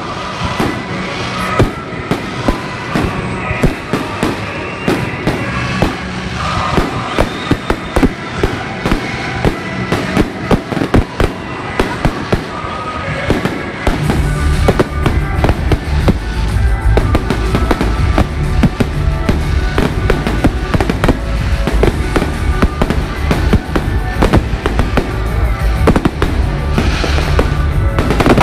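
Fireworks salute: shells bursting and crackling in rapid, irregular succession, with music playing underneath and growing heavier in the low end from about halfway.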